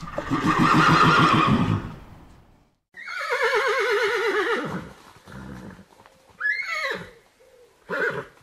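Mustang neighing: a rough call in the first couple of seconds, then a long quavering whinny that drops in pitch, and two shorter calls near the end.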